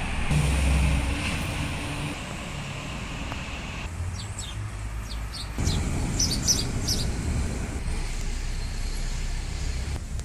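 Outdoor background of a steady low rumble of distant road traffic. A small bird chirps in a quick series of short, high notes from about four to seven seconds in.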